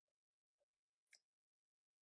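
Very faint, irregular keyboard typing clicks, with one sharper key click a little past halfway.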